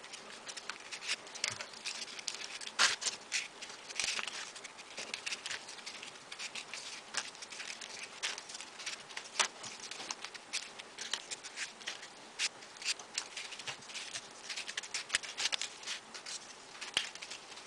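Folded paper pieces of modular origami being slipped onto one another by hand, making many small, irregular paper clicks and rustles.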